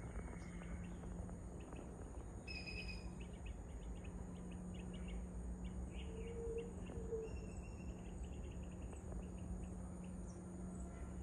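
Outdoor ambience: a steady high-pitched insect drone, with small birds chirping in quick series of short notes from a couple of seconds in, over a low steady hum and rumble.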